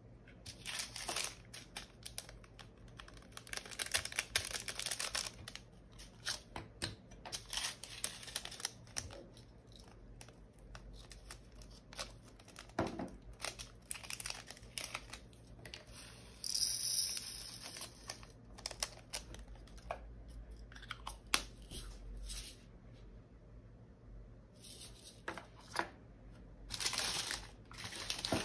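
Small plastic baggies of diamond-painting drills crinkled and cut open, and the resin drills tipped into small plastic storage containers: rustling with many short, sharp clicks.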